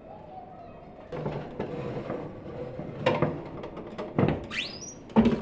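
A metal baking tray of baklava is slid into an oven, with clatters and knocks. A short rising squeak comes near the end, then a loud knock.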